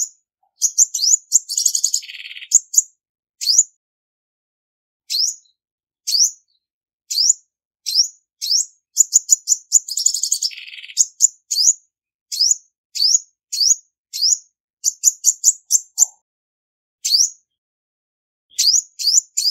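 Female olive-backed sunbird calling: sharp, high, quickly slurred chirps, some single and some in rapid runs, with two longer buzzy trills, one a second or two in and one around the middle.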